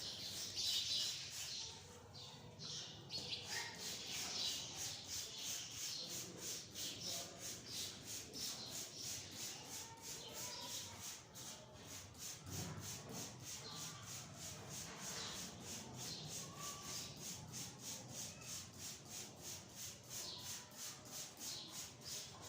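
Hand trigger spray bottle squirted over and over, a rapid train of short hissing sprays about three a second, misting diluted phenyl disinfectant.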